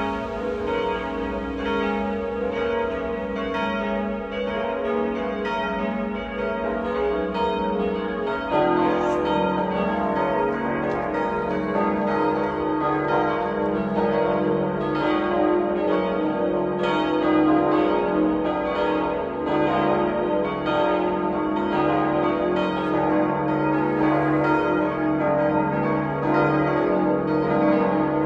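Church bells of the Liebfrauenkirche in Ravensburg ringing together in a full peal, struck over and over and ringing on. About eight and a half seconds in, a deeper bell joins and the peal gets louder.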